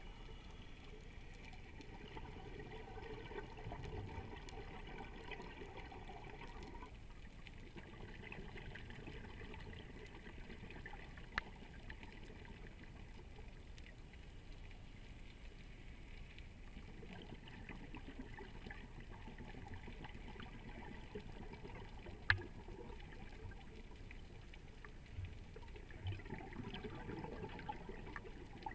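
Muffled underwater sound picked up by an action camera inside its housing: a steady watery wash, with louder bubbling surges in the first several seconds and again near the end. Twice a sharp click cuts through.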